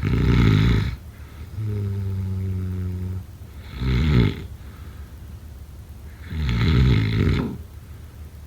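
Loud snoring: three rattling snores about three seconds apart, with a steady low droning note between the first two.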